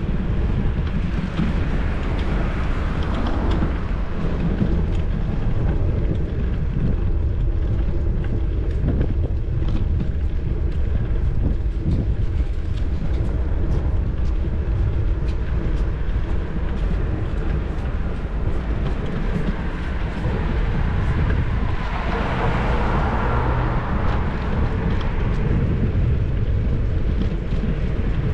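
Steady wind rumble and road noise picked up by a camera on a moving bicycle, with small rattles and clicks throughout. A louder hiss of passing traffic swells and fades about three-quarters of the way through.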